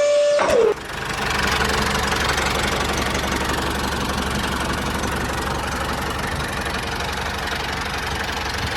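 A small motor of a DIY model tractor running steadily with an even buzz. It starts just under a second in, after a short held tone that drops in pitch and cuts off.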